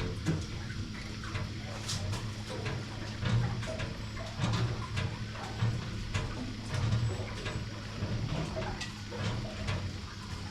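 Steady low hum with irregular light clicks and taps scattered throughout, the small handling sounds of smelt-fishing tackle inside an enclosed boat cabin.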